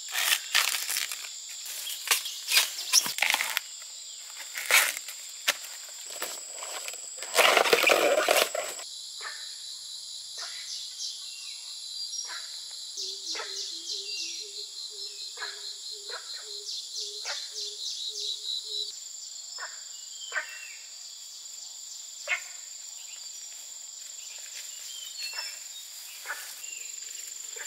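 Insects droning steadily at a high pitch, with scattered sharp clicks and snaps. There is a louder rustling burst about seven seconds in, and a quick repeating pulsed call in the middle.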